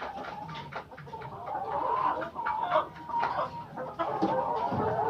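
Chickens clucking, several calls overlapping without a break.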